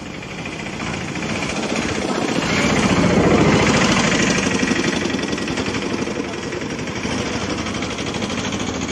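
Engine rumble with a fast pulsing texture, swelling to its loudest about three and a half seconds in and then holding steady.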